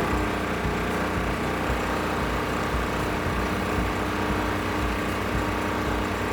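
Engine idling steadily with an even low-pitched pulse, and a steady hum that starts right at the beginning.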